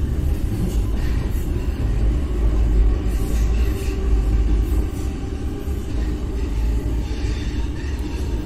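Metro train running, heard from inside the carriage as a steady low rumble.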